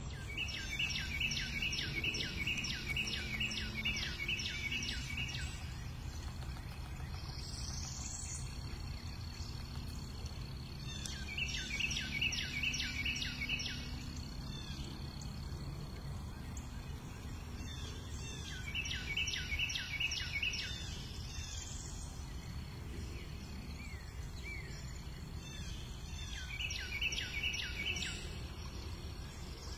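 Woodland birdsong: a songbird sings a rapid trill of repeated notes lasting a few seconds, four times, about every seven seconds, with a second bird giving short rising calls in the gaps. A steady low rumble of background noise runs underneath.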